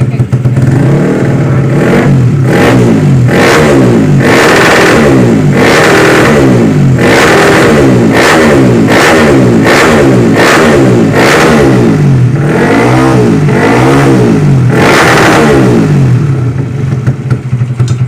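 Tuned Yamaha Jupiter MX single-cylinder four-stroke, bored to about 150cc with a swapped Vixion piston and block and fitted with a PE28 carburettor and an aftermarket Purbalingga-made exhaust, revved in quick throttle blips about a dozen times, the pitch rising and falling with each blip.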